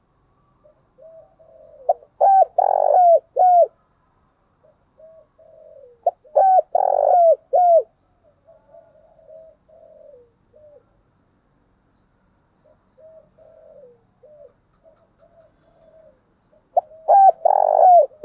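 Spotted doves cooing: three loud phrases of several quick coos, about 2 s in, about 6 s in and near the end, with softer, quieter cooing in between.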